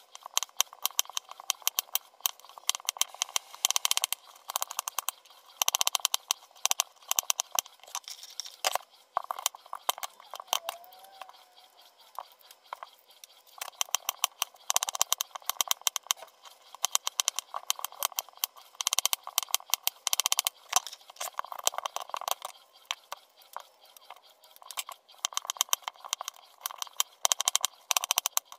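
Kitchen knife slicing and coring green apples, in the hand and on a cutting board: crisp cuts through the fruit and clicks of the blade against the board, coming in irregular runs with short pauses.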